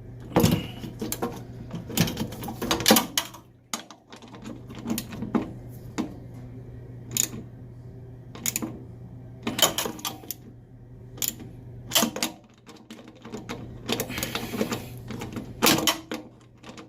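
Irregular metallic clicks and clinks of hand tools and a bolt being worked into the dishwasher's booster heater mounting by feel, over a steady low hum.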